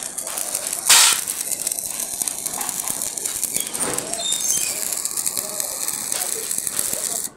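Stick-welding arc crackling and sizzling steadily as it burns on iron, with a brief louder burst about a second in.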